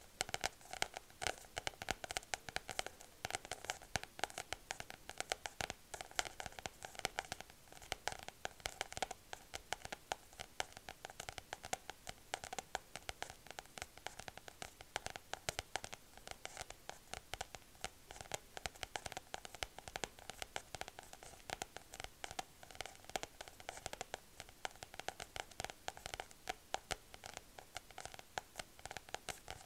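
Long acrylic fingernails tapping and scratching rapidly on a paper-wrapped gold leaf packet right at the microphone. The result is a fast, irregular patter of small clicks.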